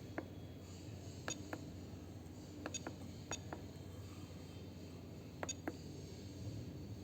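Light, sharp clicks of buttons being pressed on a dental X-ray machine's controls, about ten in all and several in quick pairs, over a steady low hum.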